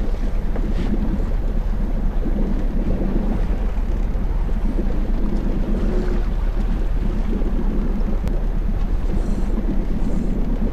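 Boat engine running steadily at low revs, with wind buffeting the microphone and water washing against the hull.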